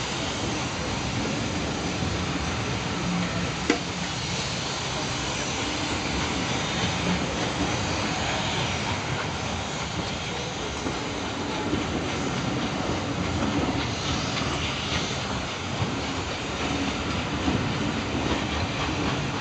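Passenger coaches rolling past a station platform: a steady rumble of steel wheels on rail with clickety-clack over the rail joints, and one sharp knock about four seconds in.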